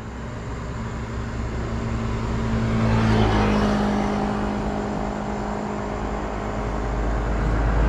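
Motor vehicle engine noise with a steady low hum, swelling about three seconds in and again near the end as traffic passes.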